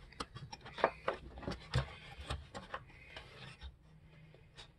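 Wooden beehive frame bars knocking and scraping against each other and the wooden jig as they are pushed into place by hand. There is a quick series of small clacks over the first few seconds, then fewer near the end.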